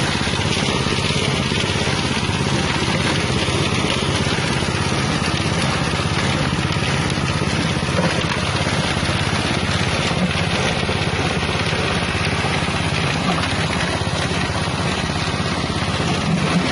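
Grinding machine with its 6.5 hp engine running steadily, a continuous loud engine drone with the rush of the spinning grinder.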